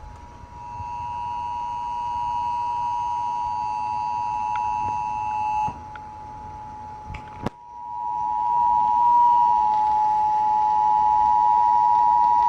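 Emergency Alert System attention signal: a steady two-note alert tone sounded in two long blasts with a short break between them, announcing a National Weather Service tornado warning.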